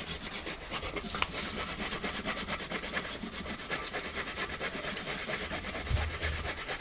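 Carrots being grated on metal box graters: a quick, steady run of rasping strokes.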